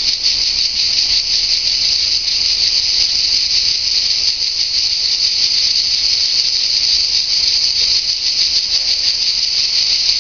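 Cicadas singing in the pines, a steady, unbroken high buzz.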